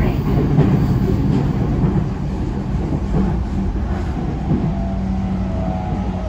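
Interior running sound of a JR East 209 series 500-number electric train: a steady rumble of wheels and traction motors, getting a little quieter after about two seconds. A steady low hum joins from about four and a half seconds in.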